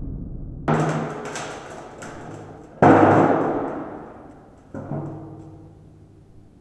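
An axe handle striking an air-inflated aluminium pillow sculpture three times, denting its metal skin to reshape it; each blow rings and dies away over a second or two, the second, about three seconds in, being the loudest. A few light clicks follow the first blow.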